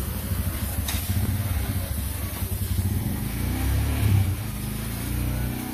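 A motor running with a steady low drone that swells about four seconds in, and a single sharp click about a second in.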